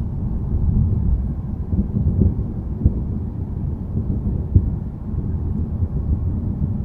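Low, steady rumble of a thunderstorm, with two short sharp knocks about three and four and a half seconds in.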